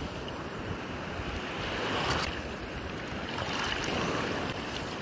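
Shallow surf washing on the shore with wind buffeting the microphone, and a short sharper noise about two seconds in.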